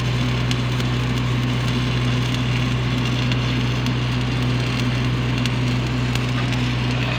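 Shielded metal arc (stick) welding arc crackling and sizzling steadily as a flat-position fillet bead is run. Underneath is the steady low hum of an engine-driven generator welding machine.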